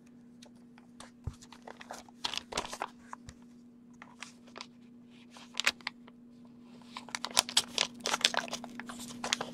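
Paper mailing envelope being handled and slit open with a small blade: scattered rustles and taps, then from about seven seconds a quick run of scratchy cuts along the paper.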